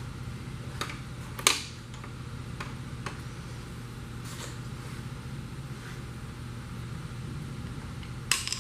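A steady low hum with a few scattered sharp clicks and knocks from parts being handled during an engine teardown. The loudest knock comes about a second and a half in, and a quick cluster comes near the end.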